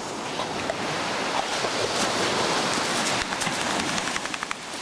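Sea surf washing onto a sand-and-pebble beach: a steady rushing noise. From about halfway on, short dry clicks and rattles sit over it.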